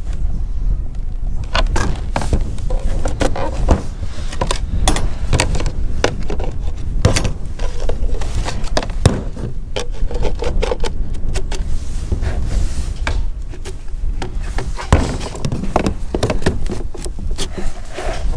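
Plastic rain-gutter downpipe and elbow being handled and pushed into the fill opening of a plastic IBC water tank: irregular knocks and scrapes of plastic on plastic. Underneath runs a steady low rumble of wind on the microphone.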